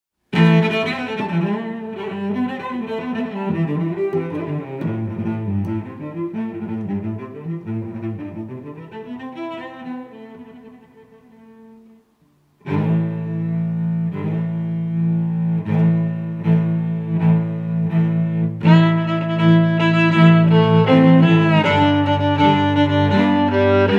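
Background music on bowed strings. The first passage fades out about halfway through, and after a brief silence a new passage of long held notes starts and grows fuller.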